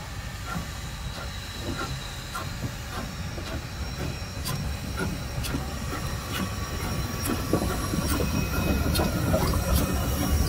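Victorian Railways K class 2-8-0 steam locomotive K163 rolling slowly past close by: a low rumble of wheels and running gear with scattered clicks and a thin high squeal, growing louder as it draws level.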